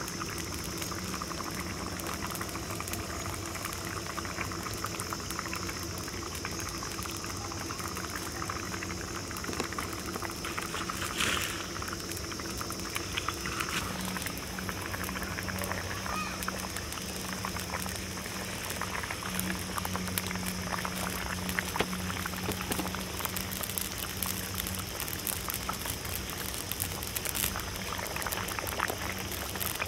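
Raw-mango fish curry boiling hard in a metal pan over a wood fire, a steady bubbling dense with small pops.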